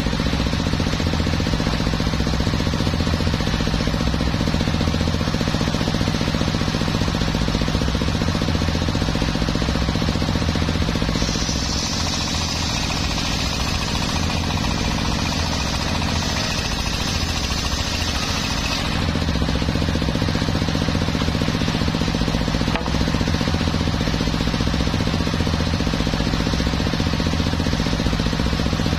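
Homemade circular saw bench running steadily, its large blade and drive making a constant low hum with an even thumping underneath. About 11 seconds in the blade cuts through a teak beam for several seconds: a bright hiss rides over the hum and the hum sags under the load, then returns to free running.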